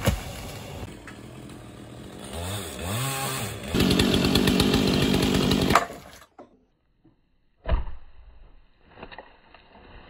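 Chainsaw revving up and down, then cutting through cottonwood at full throttle for about two seconds before stopping suddenly. After a brief silence there is a sudden knock, then a fainter steady running sound.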